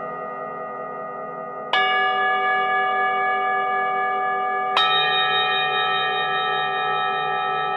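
Singing bowls struck one after another, each ringing on in long, shimmering overlapping tones. Two fresh strikes come about two seconds and five seconds in, layering over the still-sounding earlier tones.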